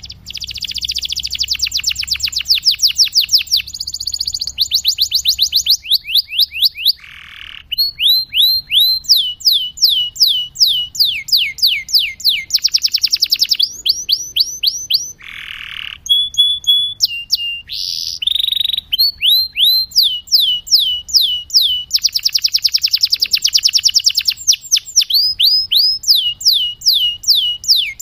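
Domestic canary singing a slow-tempo song: long runs of repeated notes, each sliding down in pitch, broken by fast rattling trills and a few short held whistles.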